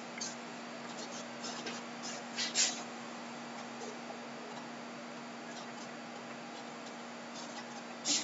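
Quiet room tone: a steady faint hum under a light hiss, with a few soft clicks and rustles, the clearest about two and a half seconds in and near the end.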